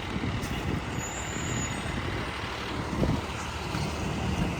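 A truck engine running amid steady outdoor noise.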